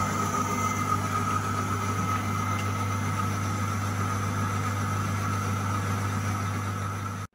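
Myford ML-7 lathe running under power feed while a tungsten-tipped boring tool bores out the inside of a metal hub. It gives a steady hum with a steady high whine above it, which cuts off suddenly near the end.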